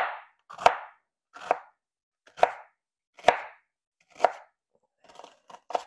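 Kitchen knife chopping an onion on a cutting board: six even chops, about one every second, then several lighter, quicker taps near the end.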